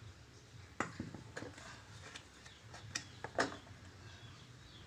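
A handful of scattered light clicks and knocks from scooter CVT pulley parts and tools being handled, over a faint steady hum. The sharpest knock comes about three and a half seconds in.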